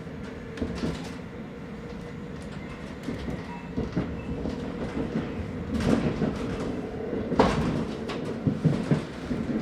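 Diesel railcar running on the rails, heard from inside: a steady rumble with clacks and sharp knocks from the wheels, the loudest about six and seven and a half seconds in.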